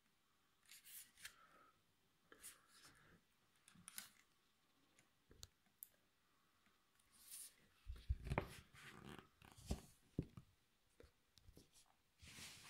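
Faint handling noise from a Bluetooth speaker being picked up and turned over in the hands: scattered light rustles and scrapes, with a cluster of dull knocks about eight to ten seconds in.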